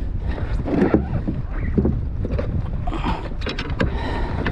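Wind buffeting the microphone over water sounds on a kayak, with a cluster of sharp clicks a little after three seconds in.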